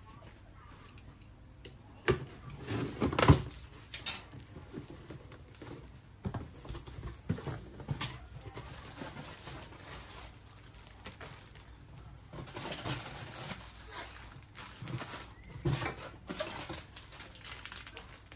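Groceries being unpacked by hand from a cardboard box: plastic produce bags rustling, the box flaps moving and packages set down on the countertop, in irregular knocks and rustles with the loudest knocks about two to four seconds in.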